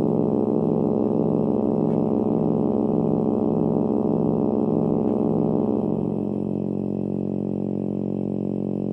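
Dark ambient drone: a dense, low stack of steady electronic tones pulsing slowly, about one and a half pulses a second; the pulsing stops about six seconds in and the drone is held on.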